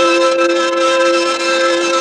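Miniature steam locomotive's chime whistle sounding one long, steady blast of several tones at once, over the noise of the running train.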